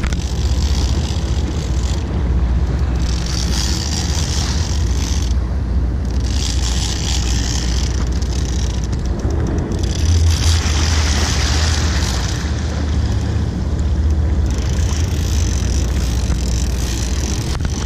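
Boat engines running with a steady low rumble, under wind on the microphone and water rushing along the stern, the hiss swelling and fading every few seconds.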